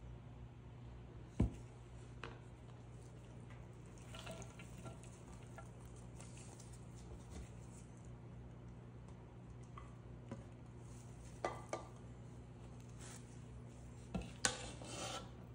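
Mixing-bowl handling while assembling a pasta salad: a sharp thud about a second and a half in as a bowl is set down on a wooden cutting board, light clicks and scrapes as chopped vegetables are tipped in, then a spatula scraping and stirring in the bowl near the end.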